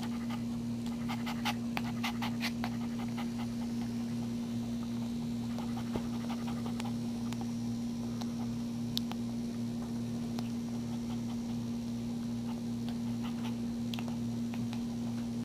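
Newborn Maltese puppy suckling at its mother's teat, making small wet clicks and smacks, thickest in the first few seconds, over a steady low hum.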